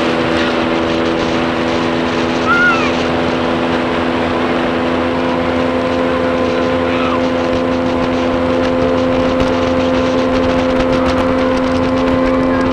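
Motorboat engine running steadily at cruising speed, with the rush of wind and water over the hull. About two and a half seconds in there is a brief high sound that rises and falls.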